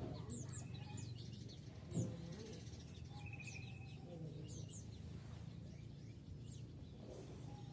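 A flock of white-eyes (pleci) calling: many short, high, downward-sliding chirps, overlapping and scattered, over a steady low hum. A brief thump about two seconds in.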